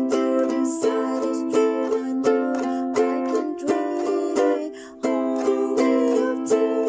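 Music of strummed, plucked-string chords with a steady beat; it dips and then starts again abruptly about five seconds in.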